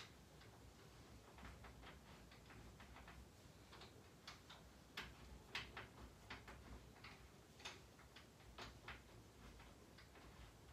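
Faint, irregular small clicks and ticks of baby crib hardware being handled and fastened by hand, a few a second at uneven spacing, with one sharper click at the very start.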